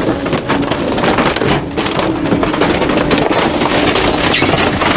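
Rear-loader garbage truck's hydraulic packer running over a steady hum, with repeated cracking and knocking as a wooden cabinet is crushed and broken apart in the hopper.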